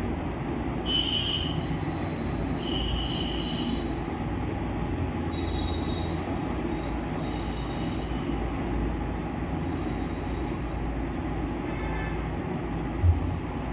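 Steady low rumbling background noise with a few short high-pitched squeals, and a single thump near the end.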